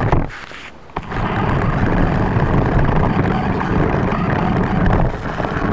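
Toy RC car driving along a concrete sidewalk: a steady rough rumble of its wheels and motor that starts suddenly about a second in, after a single knock at the start.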